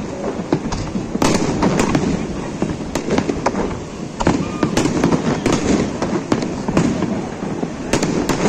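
Aerial fireworks shells bursting in rapid, irregular succession: several sharp bangs a second with crackling over a continuous din of explosions.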